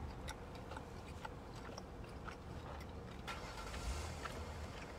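A person chewing a mouthful of buffalo wing, heard as faint wet clicks and smacks, over a low steady rumble inside a car.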